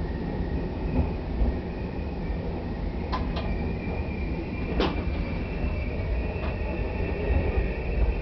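Twilight Express sleeper train rolling slowly into a station, heard from inside the passenger compartment: a steady low rumble with a few sharp clicks in the middle and a faint, steady high tone.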